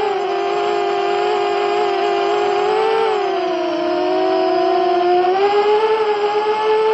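Brushless motors and propellers of a 5-inch ultralight FPV quadcopter (HGLRC 1407 3600KV motors) whining in flight, heard from a camera on the quad. The pitch drops about three seconds in as the throttle eases, then climbs again a little past five seconds.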